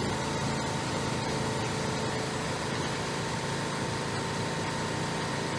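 Steady machine hum with a few constant tones and no sudden sounds, the running background of equipment in an automation workshop.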